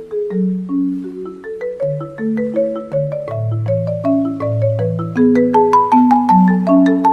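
Background music: a marimba-like mallet-percussion melody of evenly paced struck notes over low held notes, getting louder about five seconds in.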